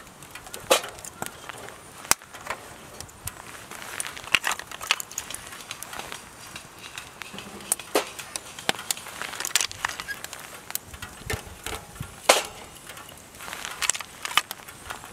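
Wood fire crackling in a fire pit as freshly added firewood catches, with frequent irregular sharp pops and snaps.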